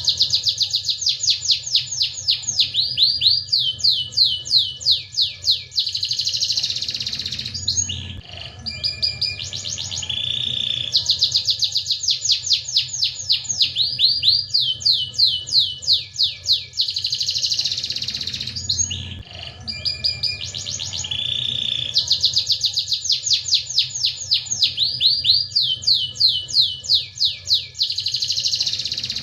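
Domestic canary singing energetically: three long songs, each a run of fast, repeated high notes sweeping downward, with short breaks between songs.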